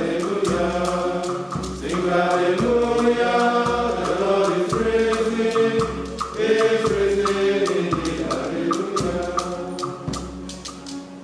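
Choir of monks' male voices chanting together from their books, in held notes that move from pitch to pitch, and dying away near the end.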